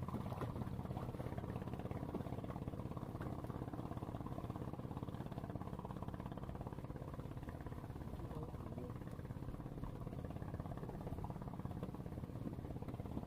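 A small engine running steadily at an even speed, a low drone with no change in pitch.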